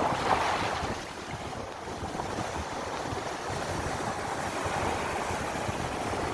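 Steady rushing water, with a brief swell right at the start, and wind buffeting the microphone in low rumbles.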